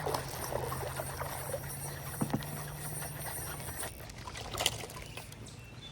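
Boat's electric trolling motor humming steadily, switched off about four seconds in, with a few light clicks.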